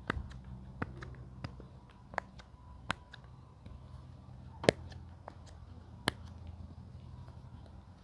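Sharp plastic clicks and pops from handling fidget toys, about seven single clicks at irregular intervals, the loudest a little after the middle, over a faint low hum.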